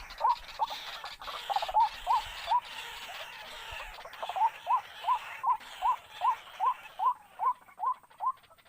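Waterhen calling: a steady series of short rising notes, about three a second, that stops abruptly near the end.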